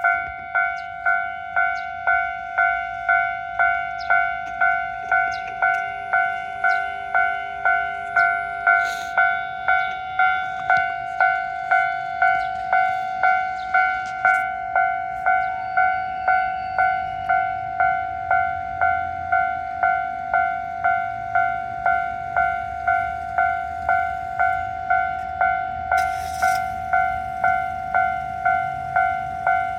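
Japanese railway level-crossing warning bell ringing steadily, an even ding about one and a half times a second, signalling that a train is approaching.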